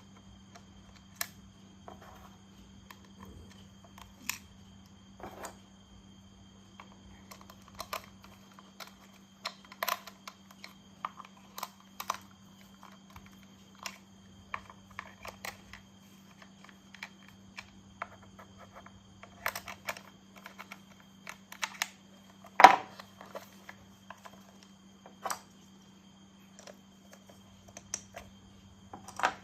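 Irregular light clicks and knocks of plastic toy train parts being handled and snapped together, with one louder knock about two-thirds of the way through, over a faint steady hum.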